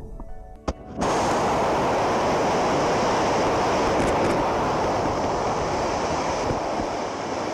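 Rocket motor firing on a static test: a short click, then about a second in a loud, steady rushing roar of exhaust starts suddenly and holds, tapering slightly near the end.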